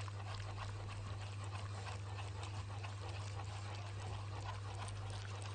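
Silicone whisk stirring a thickening strawberry gelatin and starch filling in a metal pot: a soft, steady scraping and sloshing. A constant low hum runs underneath.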